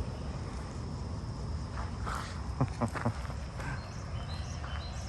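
Outdoor background of steady low rumbling noise with faint high chirps, broken about halfway through by three sharp knocks or pops in quick succession.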